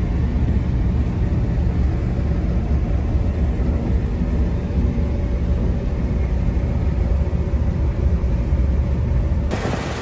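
Claas combine harvester running under load while cutting barley, heard from inside the cab as a steady low drone. Near the end the sound changes suddenly to the open field, with wind noise and the combine heard from outside.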